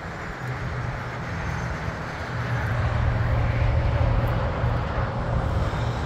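A steady low engine hum with a rushing noise over it, getting somewhat louder after about two seconds.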